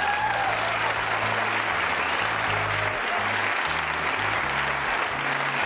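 Studio audience applauding, with band music playing underneath and its bass line moving from note to note.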